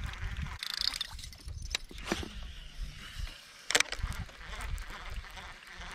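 Baitcasting rod and reel being handled and reeled in: a few sharp clicks and knocks, the sharpest about four seconds in.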